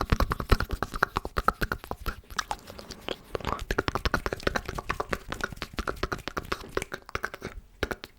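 Close-miked ASMR mouth sounds: rapid clicks and smacks, many a second, with a short break near the end.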